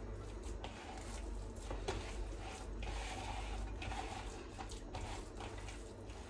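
Hands kneading minced meat with breadcrumbs in a plastic bowl, making soft, irregular squishing and rubbing noises.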